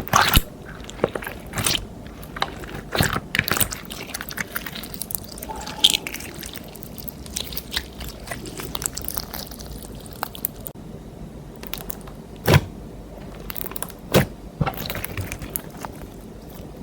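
Clear slime being squished and kneaded by hand, giving irregular wet clicks and pops, thickest in the first few seconds, with a few sharper pops later on.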